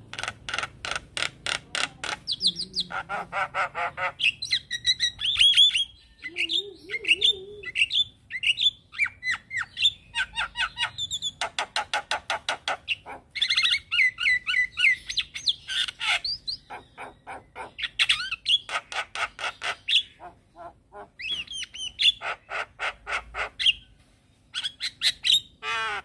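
Javan myna singing a long, varied song: fast rattling trains of clicks, whistled gliding notes and harsh squawky calls, broken by a few short pauses.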